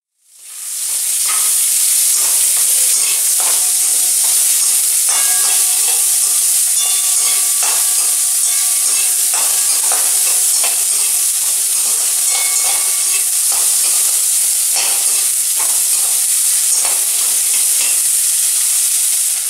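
Chopped onions frying in hot mustard oil in a metal kadai, a steady high sizzle that comes up within the first second. A metal spatula scrapes and clicks against the pan as it stirs.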